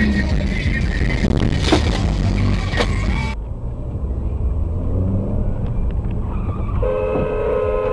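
Road and engine rumble inside a moving car, recorded by a dashcam, cutting abruptly about three seconds in to a duller cabin rumble. About seven seconds in, a car horn starts and is held as a scooter rider crosses in front of the car.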